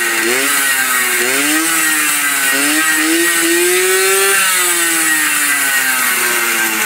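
Flandria Super Record 4 moped's 49cc two-stroke engine with a wide-wing cylinder, tuned to about 6 hp, being revved on the stand. Several quick rev blips come first, then a longer climb about three seconds in that falls back toward idle after about four and a half seconds.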